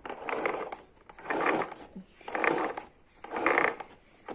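Daiko vacuum cleaner's retractable power cord being pulled out of its reel in four tugs, about one a second, the cord rubbing and the reel rattling as it unwinds.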